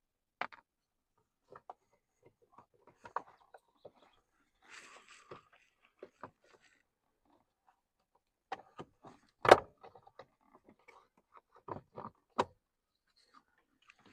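Scattered clicks and knocks of a plastic cover being worked loose and pulled off inside the truck, with a brief scrape about five seconds in and one sharp knock about nine and a half seconds in.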